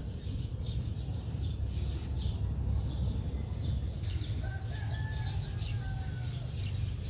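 Small birds chirping over and over above a steady low rumble, with a faint, long rooster crow starting about four and a half seconds in.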